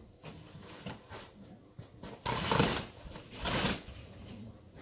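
Carpet being torn up off its tack strips: two loud tearing rips about a second apart, between softer rustling and shuffling.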